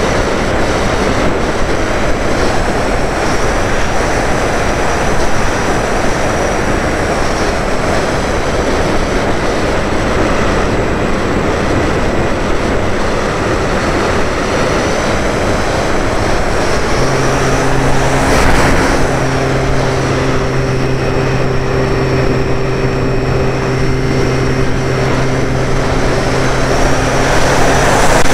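E-flite Apprentice RC trainer plane in flight, heard from its onboard camera: steady rushing wind noise over its electric motor and propeller running, with a thin high whine. About two-thirds of the way through, a steady low hum with overtones comes in, drops out briefly, then holds.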